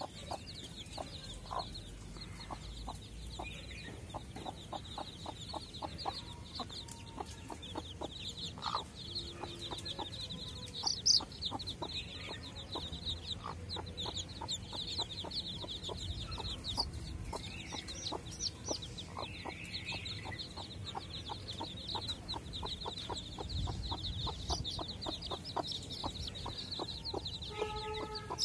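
Desi hen clucking repeatedly while her chicks peep without pause in a dense, high-pitched chorus.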